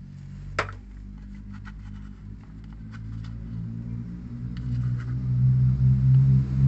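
A low, steady engine hum that swells louder over the last couple of seconds, with one sharp click about half a second in and a few faint light taps.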